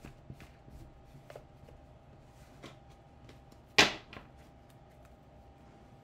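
A deck of oracle cards being handled and shuffled: light, scattered card clicks, with one sharp knock a little under four seconds in, the loudest sound, and a smaller one just after.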